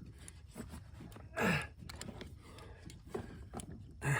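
A man's short breathy grunt with a falling pitch about a second and a half in, the effort of handling a heavy catfish, among faint small knocks and handling sounds.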